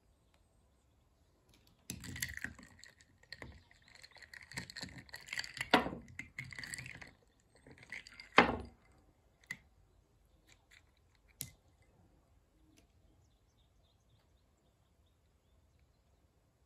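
Ice water sloshing and ice cubes clinking against a drinking glass as a die-cast toy truck is dunked and swirled in it, with two sharp clinks, the second the loudest, about halfway through. A few faint clicks follow, then it goes quiet.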